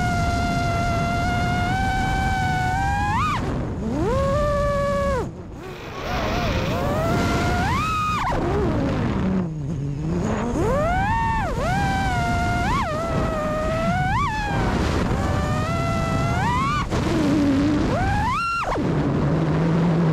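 The four brushless motors (iFlight Cyber Xing 2207.5 1777kv) of an FPV freestyle quadcopter whining, their pitch swinging up and down with the throttle: repeated sharp rising punches, with the throttle nearly cut about five seconds in and again around ten seconds. A low rush of wind on the onboard camera's microphone runs underneath.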